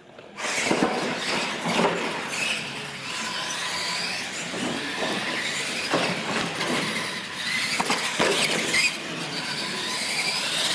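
Radio-controlled monster trucks launching and racing on a concrete floor: a steady, loud motor and tyre noise that starts suddenly about half a second in, with whines gliding up and down in pitch and scattered sharp knocks as the trucks hit and land off ramps.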